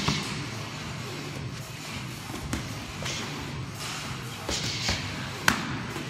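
Strikes landing in kickboxing sparring: scattered thuds and slaps of gloves and shin guards at irregular intervals, the sharpest about five and a half seconds in.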